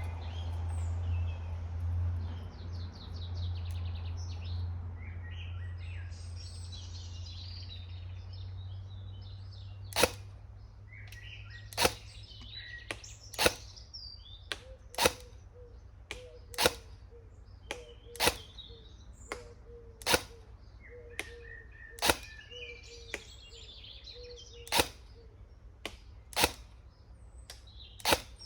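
Upgraded Cyma SR25 airsoft electric rifle firing single shots on semi-auto: about eleven sharp cracks, one every second and a half or so, starting about ten seconds in. Birds sing throughout, and a low rumble fills the first ten seconds.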